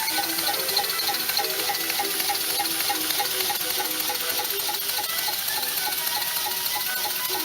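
Small model twin beam engine running steadily, with a continuous steam hiss and a regular ticking beat about five times a second from its valves and motion.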